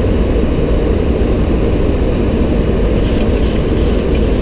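Steady low rumble and rush of cockpit noise in a Boeing 737-800 flying its approach: airflow over the nose and the engines, heard inside the flight deck.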